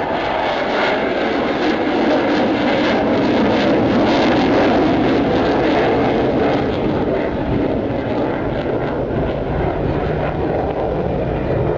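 F-16 fighter jet flying a display pass: a steady rush of jet engine noise that grows a little louder in the first few seconds, then eases off as it moves away.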